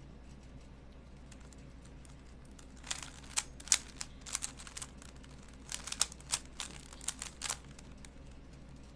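Plastic Rubik's Cube being twisted quickly in the hands, giving rapid bursts of clicks: one run starting about three seconds in and another starting near the middle.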